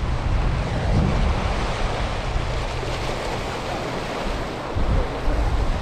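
Surf washing and breaking over rocks, a steady rushing hiss, with wind buffeting the microphone in a heavy low rumble.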